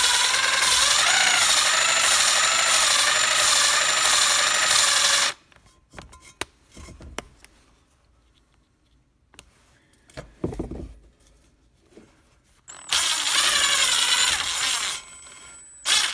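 Valve lapping compound grinding between a valve face and its seat in a cast-iron small-block Chevy Vortec head, as the valve is twisted back and forth by hand on a suction-cup lapping stick. It makes a metallic grinding rasp that wavers up and down with each twist. The first spell lasts about five seconds; a few light knocks follow as the tool is re-gripped, and the grinding starts again for about two seconds near the end.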